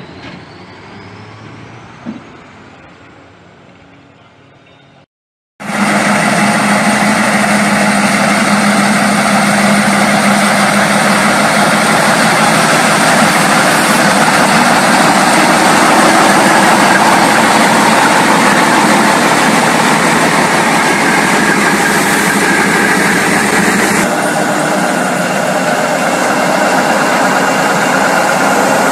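Heavy military truck diesel engine running loud and close, a dense steady rumble. It starts abruptly after a short faint stretch and a brief gap about five seconds in.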